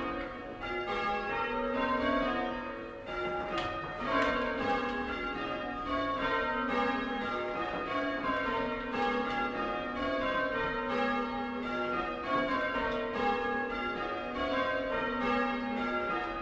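A ring of six church bells, cast in 1720 by Abraham Rudhall II with a tenor of about 10 cwt in A flat, rung full-circle in rounds: the bells strike one after another in a steady, even rhythm from treble down to tenor, their tones overlapping. The tenor sounds slightly too deep for the rest of the ring, to the ringer's ear.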